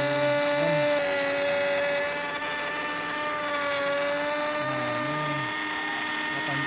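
An electric power tool's motor running steadily, a constant whine with a strong steady pitch that sags slightly a couple of times.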